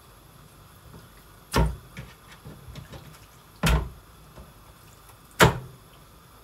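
Three heavy thumps about two seconds apart, with lighter knocks and clatter between them.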